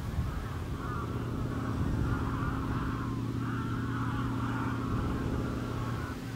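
A large flock of geese calling together, a dense chatter of overlapping honks that stops just before the end, over a steady low hum.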